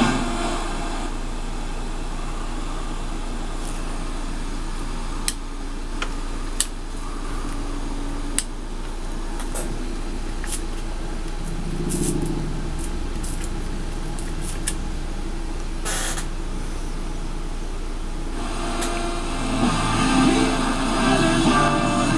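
Static hiss from the 1974 Zenith F472 W3 clock radio's speaker as it is tuned between stations, with scattered sharp crackles and brief fragments of broadcast sound; a station starts coming through near the end.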